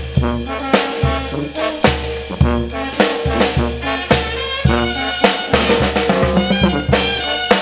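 Mexican brass band (banda) playing: trumpets and trombones carrying the tune over drums and a steady, loud beat.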